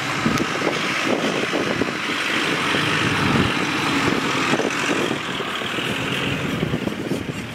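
Mitsubishi L200 Triton pickup driving, its engine running steadily.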